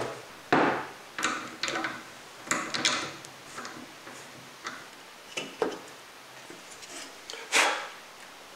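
Irregular light knocks, taps and clicks of a wooden table base being handled and worked apart on a workbench, with a longer, louder knock or scrape near the end.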